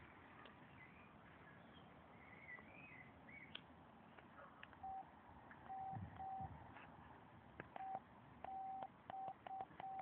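Faint electronic beeps at one steady pitch, some short and some longer, in an uneven pattern starting about five seconds in. Before they start, birds chirp faintly.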